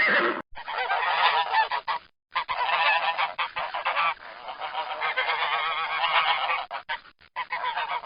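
Several geese honking in a stream of overlapping calls, broken by two short silences about half a second and two seconds in.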